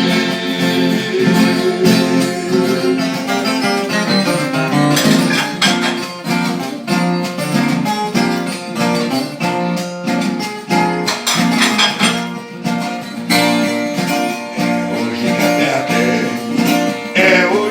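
Viola caipira playing an instrumental break of quick picked runs over steady strummed chords, with no singing.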